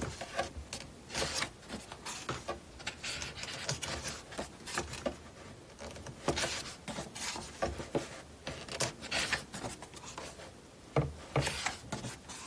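Pages of a photo book being turned and handled: repeated paper swishes and rubbing with small taps, coming irregularly.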